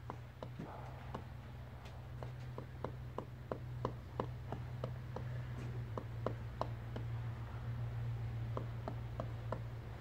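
Pileated woodpecker pecking inside a tree cavity: a run of sharp, hollow wood knocks at about three a second, with a brief pause near the end, over a steady low hum.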